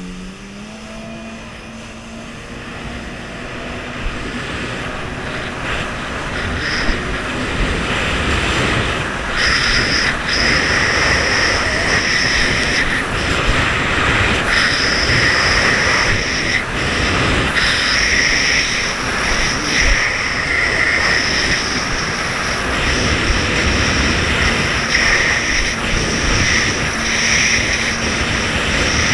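A jet ski running on open water. It grows louder over the first ten seconds or so, then holds steady at speed, with a high hiss of rushing water and air on top.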